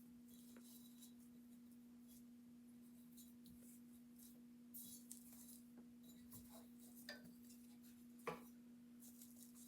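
Near silence with a steady low hum, broken by faint scattered rustles and small clicks of hands handling ribbon, with one sharper tick about eight seconds in.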